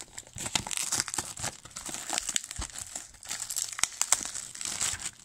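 Plastic shrink wrap being pulled and crinkled off a cardboard trading-card box by hand, in a run of irregular crackles.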